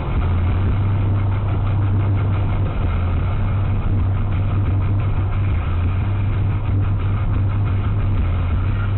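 Steady road and engine noise inside a car's cabin cruising on a motorway at about 105 km/h, with a strong low hum underneath.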